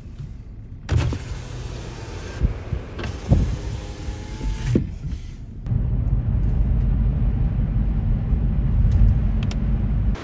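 Car driving through a snowstorm. About a second in, a rushing hiss starts suddenly and runs for a few seconds. From about six seconds in it gives way to a heavy, steady rumble of wind buffeting the microphone.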